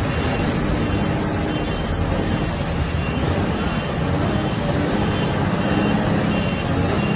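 An engine running steadily under a loud, even rushing noise, with faint short high tones repeating now and then.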